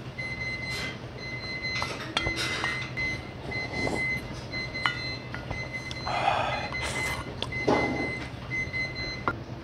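Eating and drinking sungnyung (scorched-rice water) from a stainless steel bowl: a few clicks of a metal spoon against the bowl, then slurping and swallowing as the bowl is drained, loudest between about six and eight seconds in. A steady high whine runs underneath.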